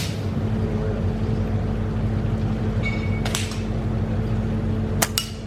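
Air rifle shots or pellet strikes on targets: sharp cracks about three seconds in and two more close together near the end, over a steady low mechanical hum.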